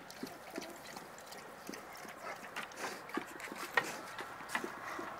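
A dog close to the microphone making small irregular clicks and smacks, a few a second, with one sharper click near the middle.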